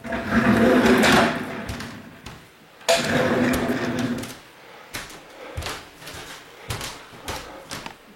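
Moving boxes being shifted and stacked: two long scraping slides, then a series of short light knocks and thuds, in an echoing, nearly empty room.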